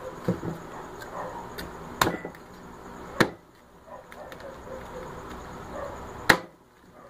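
A large kitchen knife chopping a crispy fried chicken on a plastic cutting board: four sharp knocks of the blade striking the board, the loudest near the end, with softer cutting sounds between.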